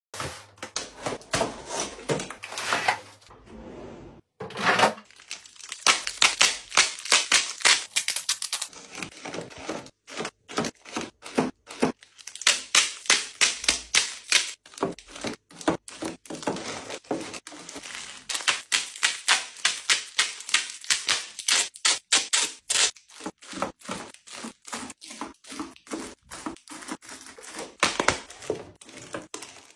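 Snack packs being unpacked and set one by one into a plastic drawer organiser: crinkling plastic wrappers and many quick light taps and clicks, with stretches of rustling and tearing packaging.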